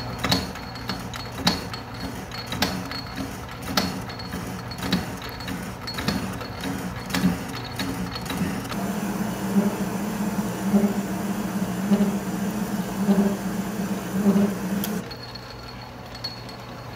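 Atlas metal lathe running and turning the outside diameter of a chuck backplate with a carbide tool. There is a steady motor hum and a sharp knock a little under once a second. From about halfway a pulsing cutting sound joins in, typical of this lathe chattering under a carbide tool's pressure, and it cuts off suddenly near the end.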